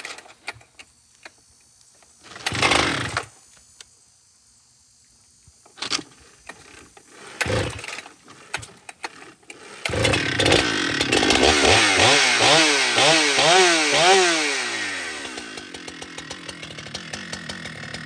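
Husqvarna two-stroke chainsaw being started: a few short bursts of noise, then the engine catches about ten seconds in. It is revved up and down several times, then drops back to a steady idle.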